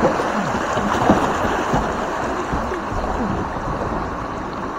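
Fast, high river water rushing steadily around a kayak.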